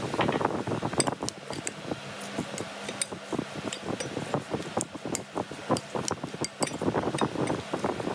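A metal spoon tosses shredded cabbage and red onion in a glass bowl: a steady crisp rustle and squish of the vegetables, with repeated sharp clinks of the spoon against the glass.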